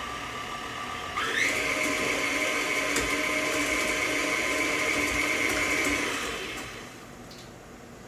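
Electric tilt-head stand mixer beating cookie batter. It runs at a low speed, then about a second in is switched up with a rising whine to a steady, higher-pitched run, and winds down near the end.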